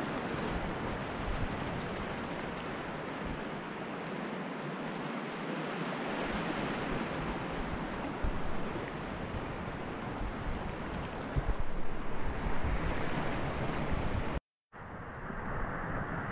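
Rushing whitewater of a river rapid, a steady noisy wash with gusts of wind buffeting the microphone, louder for a moment about two-thirds of the way through. The sound cuts out for an instant near the end.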